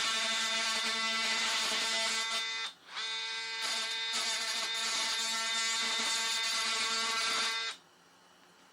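Oscillating multi-tool running with a steady buzz, scratching the surface of asphalt shingles. It stops briefly about a third of the way in, runs again, and cuts off sharply near the end.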